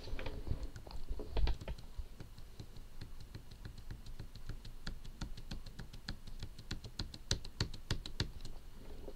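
Typing on a computer keyboard: a run of quick, irregular key clicks, several a second, with a few heavier thumps in the first two seconds.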